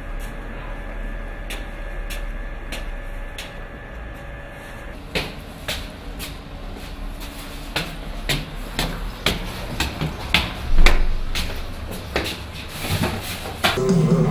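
Footsteps climbing a concrete stairwell at about two steps a second, with plastic shopping bags rustling and knocking, and one louder thump about eleven seconds in.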